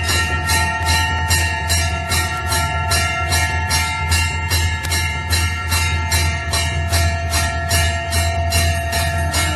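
Temple bell rung in a fast, steady rhythm of about three strikes a second, its ringing tones carrying on unbroken between strikes over a low steady hum.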